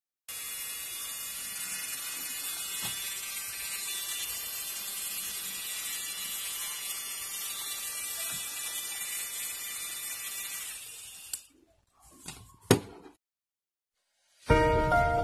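A small electric manicure nail drill, rated at 20,000 rpm, running steadily with a high whine. It stops suddenly about eleven seconds in, followed by a few clicks, and music starts near the end.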